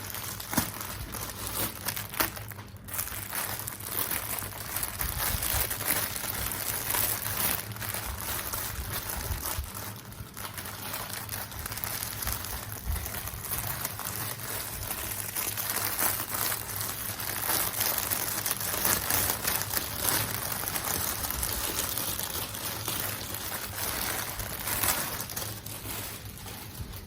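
Packaging crinkling and rustling as a parcel is unwrapped by hand, with many small clicks and crackles throughout.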